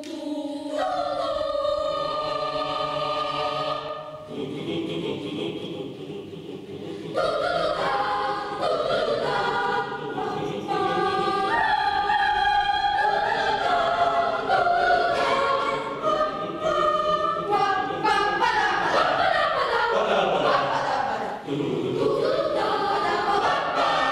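Boys' choir singing a jazz étude a cappella. The singing drops to a softer, lower passage about four seconds in, comes back fuller about seven seconds in, and has sliding pitches near the end.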